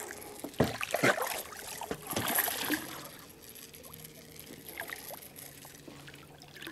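Water splashing against a small boat as a hooked fish is reeled up to the side, with sharp knocks and clicks from the rod and reel, mostly in the first two and a half seconds.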